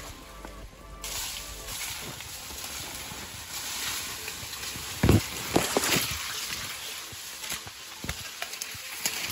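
Sugarcane leaves rustling and scraping as someone pushes through the dense cane, with leaves brushing against the microphone. A few louder thumps come about five to six seconds in.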